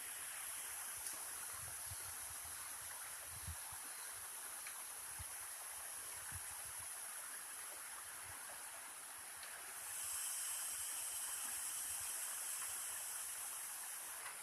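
Water rushing at a waterfall: a steady hiss of falling water that grows louder about ten seconds in.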